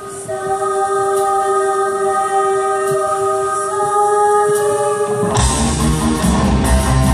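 Live rock-orchestra music: a group of singers holds one long chord, then about five seconds in the full band comes in loudly with bass, drums and electric guitars.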